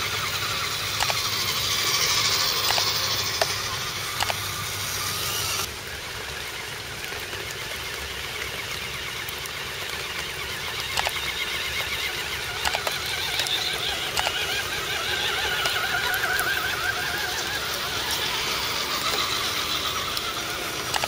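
Small electric motors and geartrains of RC scale trucks whining, the pitch rising and falling with the throttle, with scattered clicks. The sound changes abruptly about six seconds in.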